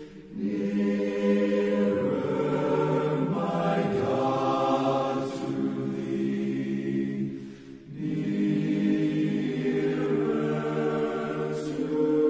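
Slow choral singing in long held chords, breaking off briefly at the start and again about eight seconds in.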